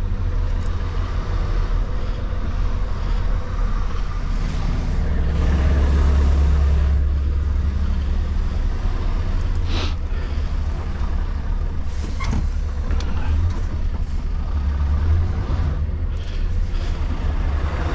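Scania S770 V8 truck engine running under light load at crawling speed, heard from inside the cab. It pulls harder for a couple of seconds about five seconds in, and there is a short sharp hiss of air about ten seconds in.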